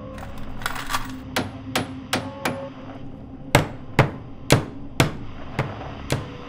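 Hammer driving nails into a wooden board: about ten sharp blows at roughly two a second, growing stronger about halfway through, over a low steady hum.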